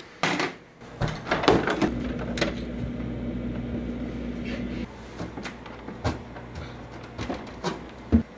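Kitchen cupboard and appliance doors being handled, with sharp knocks and clicks. A steady electric hum starts about two seconds in and cuts off abruptly about three seconds later, and a few lighter knocks follow.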